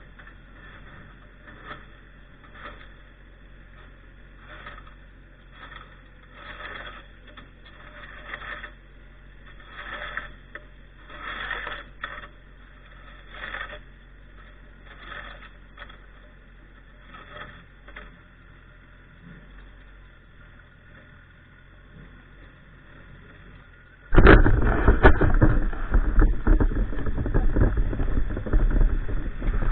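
Short scraping or crunching strokes about once a second in snow and ice, over a low steady hum. About 24 seconds in, a much louder, rough rushing noise starts suddenly and keeps going.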